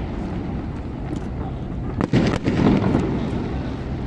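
Fireworks going off over a steady low rumble, with a sharp bang about two seconds in followed by a louder burst of less than a second.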